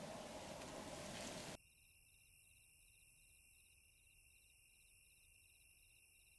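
A steady noisy hiss for about a second and a half that cuts off suddenly, followed by faint insect chirping in short pulses, about three a second.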